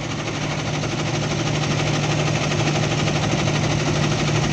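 A truck engine running steadily with a knock of unknown cause. The driver suspects a fuel injector, but with no smoke he doubts it, and he fears spun crankshaft bearings.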